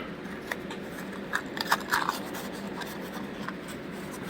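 A few faint clicks and scrapes as a small box of tacks is handled and opened, over a low steady hum.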